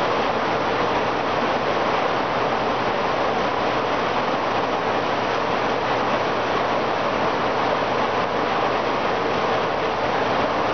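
Steady rushing noise of aquarium water circulation: filter and pump outflow moving water through the tank, even and unchanging.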